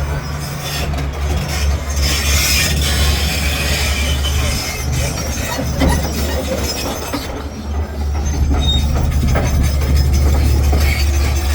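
Caterpillar C13 inline-six diesel engine running with a steady low rumble, a little louder in the last few seconds. The engine is misfiring and smoking heavily.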